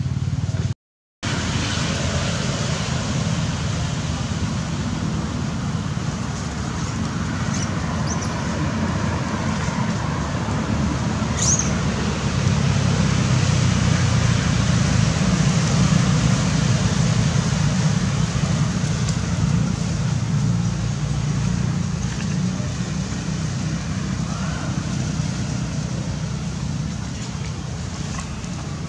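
Steady outdoor background noise: a low rumble under a constant hiss, with a brief dropout about a second in and a single short high chirp about eleven seconds in.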